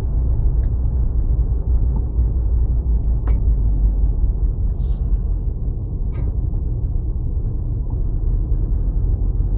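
Car driving along a road, heard from inside the cabin: a steady low rumble of engine and tyre noise, with a few brief clicks.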